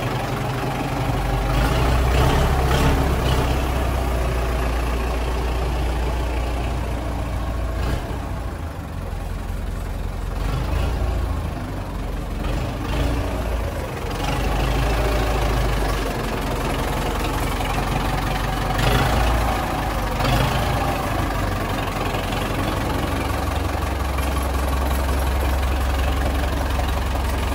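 Zetor 6718 tractor's four-cylinder diesel engine idling steadily.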